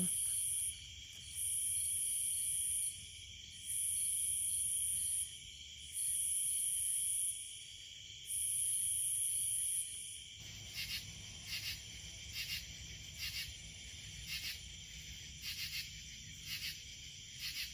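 Night insect chorus: crickets trilling steadily, with a very high-pitched insect buzz coming in long pulses about every two seconds for the first ten seconds. About ten seconds in, a katydid starts calling with raspy rhythmic pulses in groups of two or three.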